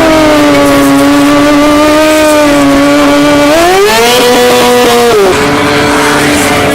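Stunt motorcycle engine held at steady high revs, rising to a higher held pitch about three and a half seconds in, then dropping back down after a second and a half.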